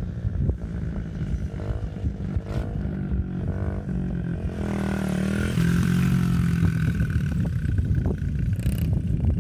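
Small dirt bike engine running and revving, its pitch rising and falling with the throttle as it rides the track, getting louder as it comes close past the middle.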